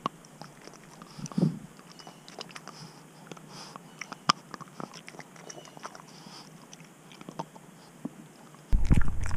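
A small Boston terrier gnawing and biting a hard rubbery dental chew held in a hand, with irregular crunches and clicks of teeth. Near the end a sudden, much louder low noise cuts in.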